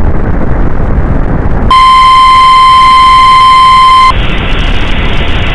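Emergency alert tone, a steady electronic tone near 1 kHz like the weather-radio warning alarm, breaking through loud hissing static. The tone comes in after about a second and a half of static, holds for about two and a half seconds, then cuts off into duller static.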